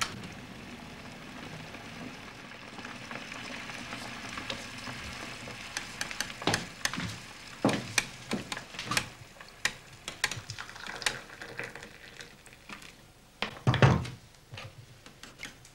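Kitchen sounds of tea being made: a steady hiss for the first several seconds, then a run of clinks and knocks of crockery and hot water poured from an electric jug kettle into a cup, with one heavier knock near the end.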